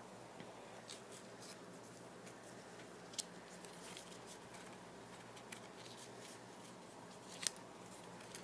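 Faint handling noises from an unboxing: a few light clicks and scratches, with two sharper clicks about three seconds in and near the end, over a steady low hiss.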